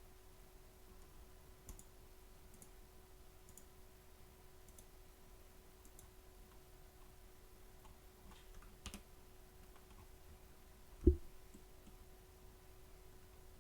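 Faint computer mouse clicks, single sharp clicks about once a second and a short cluster, while image regions are selected one by one. About eleven seconds in, one much louder dull thump, over a faint steady hum.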